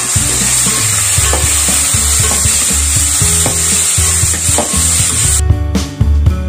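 Chopped onions, tomatoes, green chillies and curry leaves sizzling in hot oil in an aluminium pot while a steel spatula stirs and scrapes through them. The sizzling cuts off suddenly about five and a half seconds in, and drum-led music takes over.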